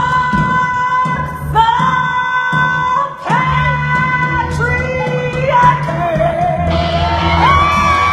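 Live rock band with a woman singing lead: long held sung notes over bass, drums, keyboard and guitar. Near the end the voice slides up to a high note and holds it.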